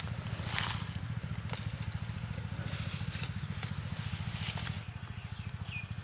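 Goat grazing in dry leaf litter, its mouth and hooves making scattered rustles and crackles, over a steady low motor hum. A short bird chirp comes near the end.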